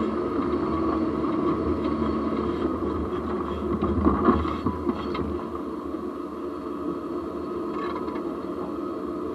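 Jeep driving, heard from a camera mounted low at the front axle: steady road, tyre and wind noise with a hum, a few knocks about four seconds in, and a little quieter over the last few seconds.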